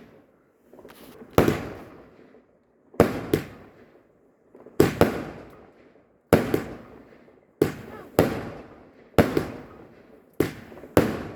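Garden fireworks going off in a rapid series of about nine sharp bangs, one every second or so, each dying away quickly, like a multi-shot firework cake firing shot after shot.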